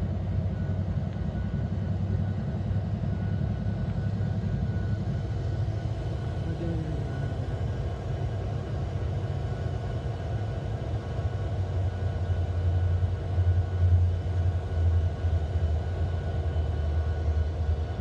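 Freight train rolling past: a steady low rumble of railcars on the track, swelling a little about two-thirds of the way through.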